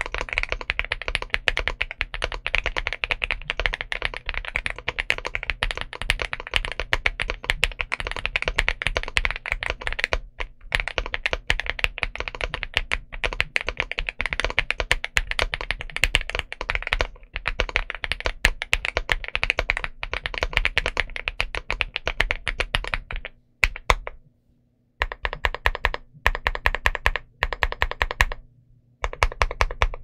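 Steady fast typing on a Leobog Hi75 mechanical keyboard with Nimbus linear switches and MDA-profile PBT keycaps: a dense stream of keystrokes, broken by a few short pauses, with the typing stopping for over a second about two-thirds of the way in.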